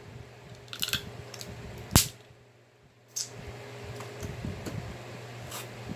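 Eating noises from a seafood boil: short crisp clicks and smacks of chewing and handling food, with one sharp knock about two seconds in.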